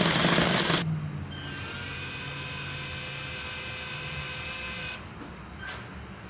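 LEGO Technic tank model running on electric motors: a loud rattle of the plastic tracks and drive gearing for the first second, then a quieter, steady motor whine with gear tones from the bridge launcher for about four seconds. It stops, and a short click follows near the end.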